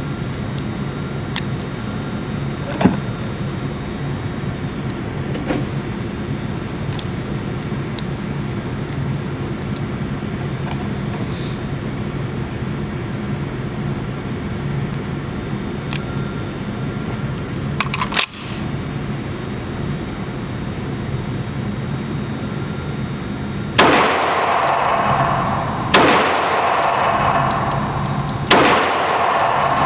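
CZ 97B .45 ACP pistol fired three times, about two to two and a half seconds apart, starting near the end; each shot is loud and rings out briefly. Before that there is only a steady background hum with faint scattered pops.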